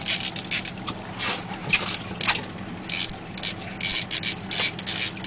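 Outboard motor running steadily at trolling speed, under irregular scratchy, hissing bursts of noise.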